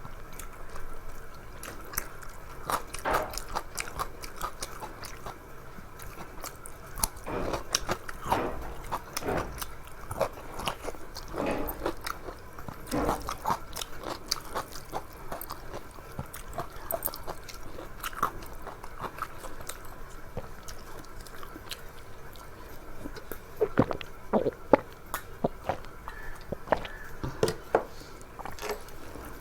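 A person eating a rice-and-curry meal close to the microphone: wet chewing and mouth smacks at irregular intervals, with a few louder bites about 24 seconds in.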